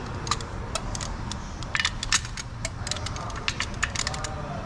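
Click-type torque wrench ratcheting on the upper intake manifold bolts of a GM 3.5-litre V6: a run of sharp, irregular ticks from the pawl as the bolts are brought to 25 foot-pounds.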